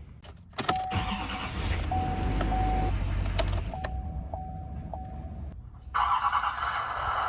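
Diesel truck engine starting with a sudden onset and settling into a low rumbling idle. A steady high beeping tone sounds on and off through the middle. About six seconds in, a louder even rushing noise cuts in abruptly.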